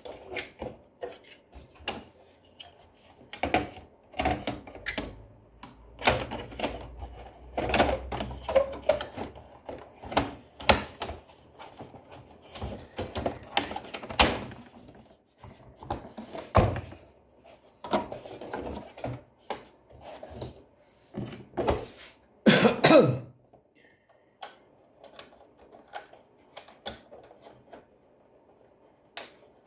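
Irregular clicks, knocks and scrapes of tools and vacuum cleaner parts being handled during a repair. There is one louder, rougher short burst about two-thirds of the way through.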